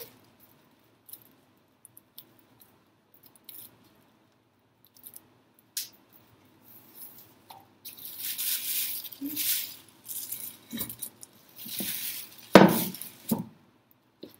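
Plastic bag strips crinkling and rustling in bursts while a braided plastic coil is handled and glued, with scattered light clicks and taps. A louder knock comes near the end.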